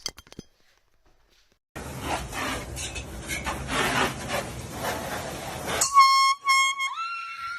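A few seconds of loud, dense noise, then, about six seconds in, a handheld air horn blasts a loud, reedy single tone that steps up in pitch about a second later before trailing off.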